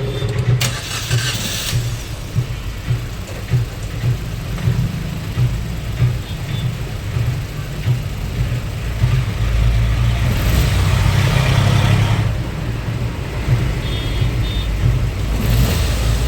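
Maruti Suzuki Ertiga's four-cylinder petrol engine idling roughly with an uneven, lumpy beat. It has a heavy misfire and is running on only cylinders 3 and 4, with 1 and 2 dead. It runs louder for a couple of seconds midway.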